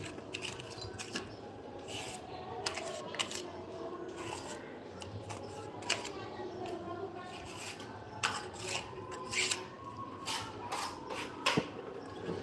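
Mason's trowel scraping and smoothing cement mortar around a plaster column ornament, in irregular strokes with several sharp taps of the blade.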